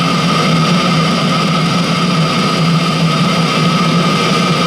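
Chinese diesel heater running steadily near full burn on a blend of one-third engine oil and two-thirds diesel, its burner and blower fan making a steady roar with a low hum and a steady whine. The glow plug is still on, so the flame is not yet self-sustaining.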